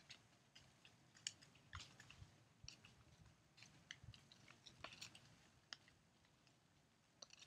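Still-green elm leaves shed after a hard freeze, falling and landing on pavement and dry grass: faint, irregular ticks and rustles, several a second.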